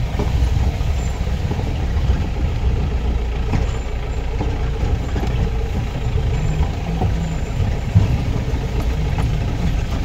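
Jeep engine running as it drives along a rough dirt track, a steady low rumble with occasional knocks from the body, the loudest about eight seconds in.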